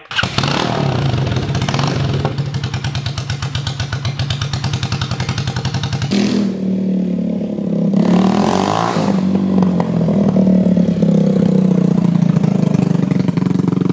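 2009 Honda CRF230L's single-cylinder four-stroke engine running, with a sudden change in its sound about six seconds in and a rise in revs around eight seconds in.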